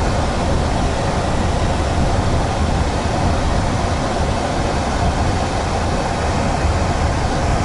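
Steady road and engine noise of a car being driven, heard from inside the cabin: an even rumble with no breaks or sudden events.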